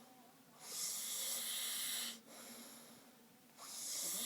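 A sleeping man snoring: a loud, hissing breath about half a second in that lasts about a second and a half, and another starting near the end, with quieter breathing between.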